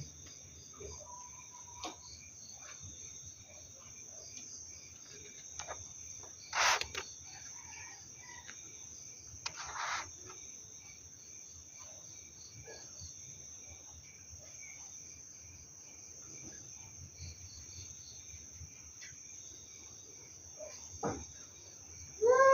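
Night insect chorus: crickets trilling steadily in several pulsing layers. Two short noisy bursts stand out about 7 and 10 seconds in, and a cat begins a yowl at the very end.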